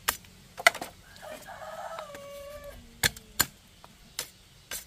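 Machete blade striking and shaving a thin bamboo strip, six sharp knocks. A rooster crows once in the middle, one call of under two seconds that drops in pitch at the end.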